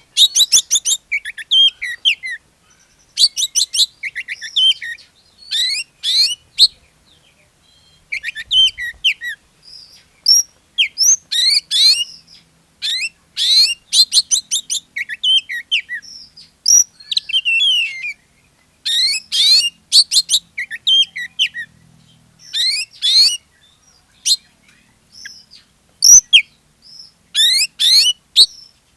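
Oriental magpie-robin singing vigorously in full song: bursts of rapid whistled notes that sweep up and down, mixed with chattering, broken by short pauses between phrases.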